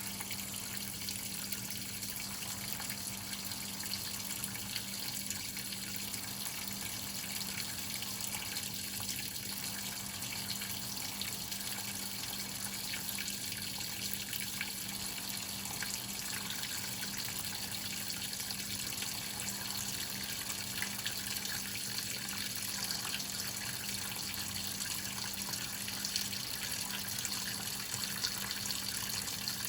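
Water running steadily into the tub of a Whirlpool top-load washing machine as it fills, with a steady low hum underneath.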